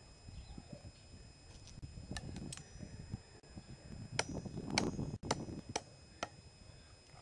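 Machete blade striking a thin wooden stick held on a log: a few light taps about two seconds in, then five sharp chops about two a second, the loudest in the middle, some with a short metallic ring from the blade.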